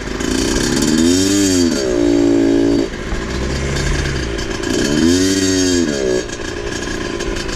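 Small two-stroke motorcycle engine revved twice, its pitch rising and falling each time, held briefly between the two revs.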